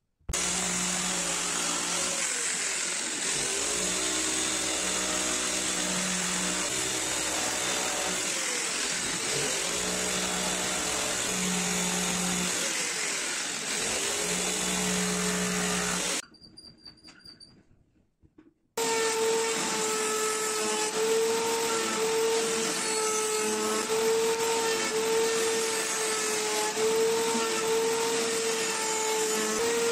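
Electric jigsaw cutting a small piece of wood, its motor pitch dipping and rising with the load. After a short pause, a table-mounted router with a round-over bit runs with a steady high whine, shaping the edge of a wooden piece.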